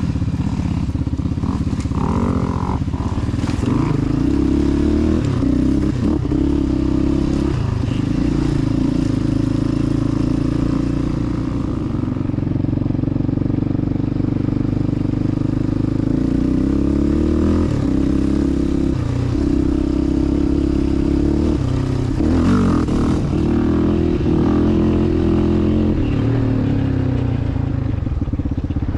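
2006 Yamaha Raptor 700R's single-cylinder four-stroke engine running as the quad is ridden, held at a steady pitch. Past the middle the pitch dips and climbs a couple of times as the throttle is rolled off and back on.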